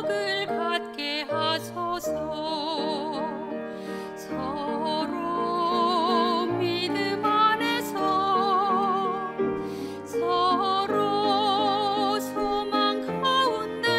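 Soprano voice singing a slow sacred song with wide vibrato, accompanied by piano.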